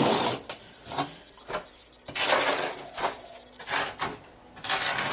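Half-inch notched steel trowel scraping through wet thinset mortar on a floor: repeated rough scraping strokes with short pauses between them, as the mortar bed is spread and levelled.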